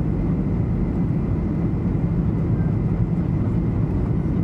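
Steady cabin noise inside a jet airliner on approach to land: an even, low-pitched rush of engines and airflow with no distinct events.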